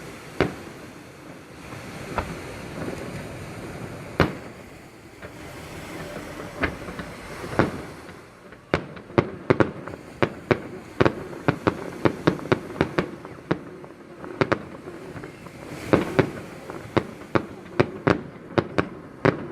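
Fireworks display: scattered booming bursts of aerial shells, then from about eight seconds in a rapid string of sharp crackling bangs, several a second.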